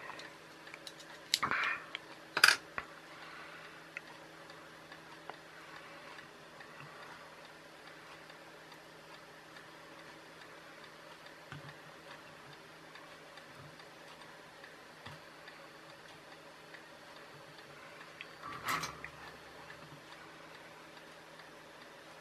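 Small clicks and knocks from a tiny loudspeaker and a circuit board being handled, two sharp ones about two seconds in and another near the end, over a faint steady hum.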